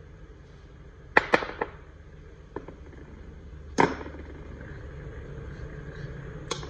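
A utensil knocking and clinking against a dish as leftover custard ice cream mixture is transferred into a bowl: a quick cluster of knocks about a second in, a louder single knock near four seconds, and two more at the end, over a steady low hum.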